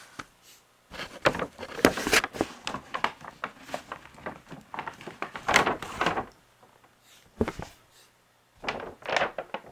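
A paper shopping bag and a cardboard shoebox being handled and lifted out: rustling, scraping and soft knocks in bursts, with a quiet pause about six seconds in before a last burst near the end.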